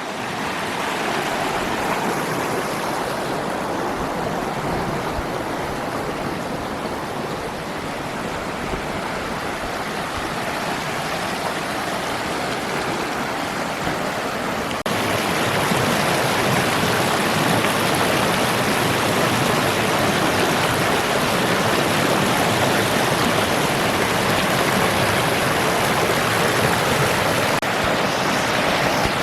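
A stream flowing steadily, as a constant wash of water noise that steps up louder about halfway through.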